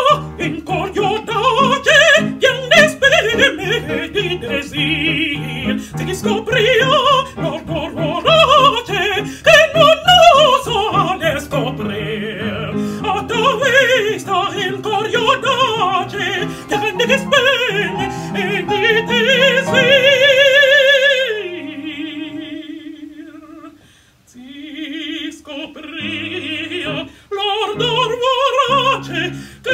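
A woman singing an operatic aria in full voice with vibrato, accompanied by an upright piano. About twenty seconds in she holds a long high note, then drops to a lower sustained note and pauses briefly before the next phrase.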